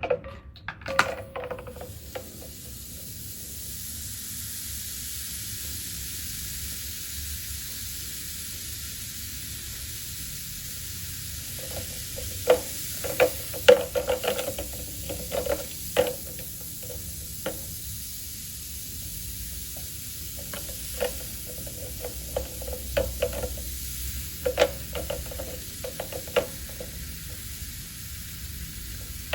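Seashells soaking in diluted oxalic acid, fizzing with a steady, even hiss, with scattered hard clicks and clinks of the shells being moved and knocking together in clusters midway and later on.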